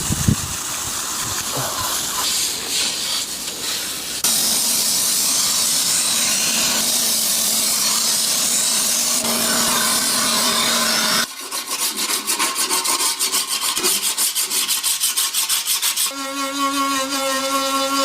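Rusty sickle blade being sharpened, metal rubbing against an abrasive. A steady rasp runs for about eleven seconds, then gives way to fast, rhythmic back-and-forth strokes, which pick up a pitched ring in the last couple of seconds.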